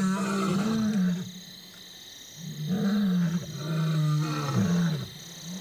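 Male lion roaring: deep calls that rise and then fall in pitch. The first ends about a second in, and after a short pause a longer one runs from about two and a half seconds to five seconds. This is roaring used by lions to signal to other prides.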